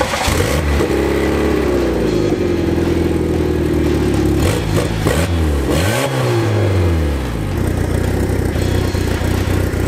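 Small car's petrol engine, back on regular engine oil after a test run with WD-40 in the crankcase, running at a raised idle. It is revved twice about halfway through, rising and falling each time, then settles to a steady lower idle.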